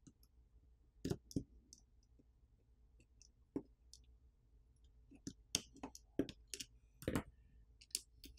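Faint, sharp clicks and taps of metal tweezers and a flex-cable connector against the opened smartphone's internals as a flex cable is unclipped and lifted out. Two clicks come about a second in and one near the middle, then a quicker run of about a dozen in the last three seconds.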